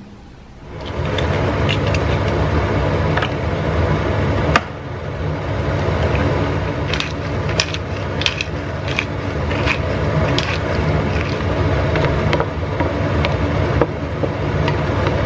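Eggs and tomatoes frying in a non-stick pan, sizzling steadily over a low rumble. A wooden spatula scrapes and taps the pan, with one sharp knock about four and a half seconds in.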